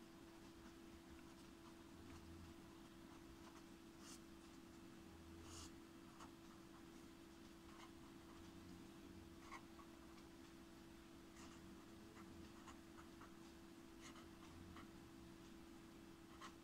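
Faint scratching and ticking of a pen writing on paper, in short irregular strokes, over a steady low hum.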